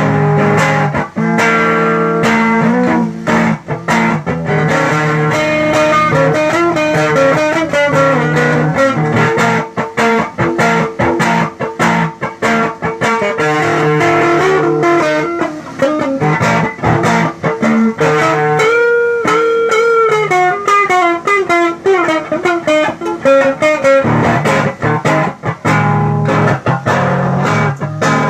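Electric guitar played through a homemade effects unit under test: a continuous stream of quickly picked single notes and phrases, with several bent notes about two-thirds of the way through.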